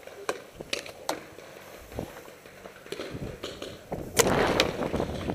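Paintball markers firing during a game: a few sharp pops in the first second, then two louder shots close by about four seconds in, half a second apart, as the player leans out from cover and fires his own marker.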